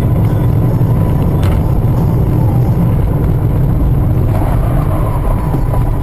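Steady low drone of road and engine noise inside a car cruising at highway speed, about 90 km/h, heard through a dashcam's microphone.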